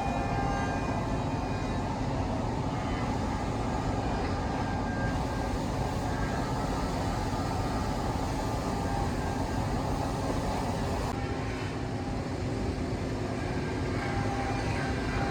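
Industrial CNC router running steadily, a continuous machine drone with a steady whine over it.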